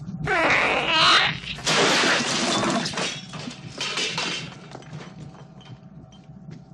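Horror-film sound effects: a shrill, wavering shriek about a second long, then a loud crash and clatter of breaking dishes and glass, with a second burst of clatter about four seconds in before it dies down.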